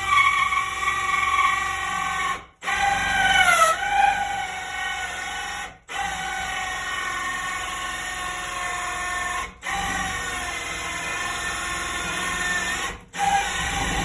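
Electric drill driving a 2-1/8 inch hole saw into wood: a steady motor whine whose pitch sags and recovers as the saw bites. The drill stops for a moment four times and starts again each time.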